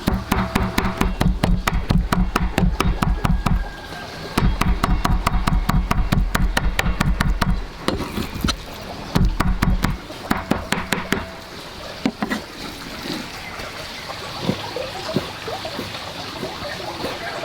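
A knife chopping rapidly on a wooden chopping board, several strikes a second. The chopping comes in runs broken by short pauses about 4 and 8 seconds in, and stops about 11 seconds in, leaving a few softer knocks.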